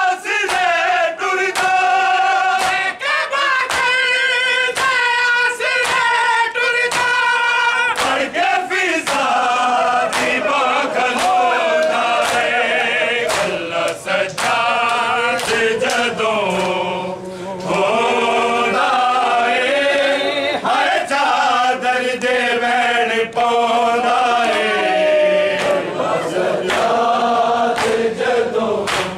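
Men's voices chanting a noha, a Shia mourning lament, in chorus, with sharp slaps of hands striking bare chests (matam) keeping a steady beat.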